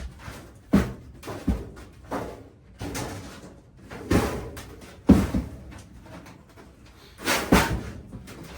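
Needle-nose pliers used as a hammer, striking a sheet-metal supply plenum: about seven sharp, irregularly spaced metal knocks that ring briefly, two of the loudest near the end.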